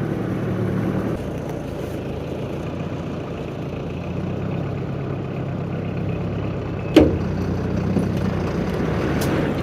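Delivery truck's engine running steadily at idle, with one sharp knock about seven seconds in.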